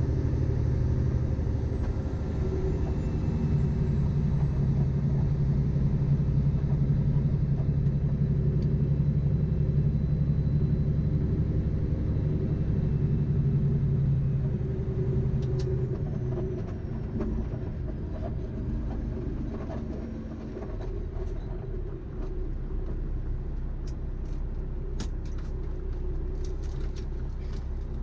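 Peterbilt semi-truck's diesel engine pulling through the low gears, a steady low hum that eases off about halfway through. Light clicks come in toward the end.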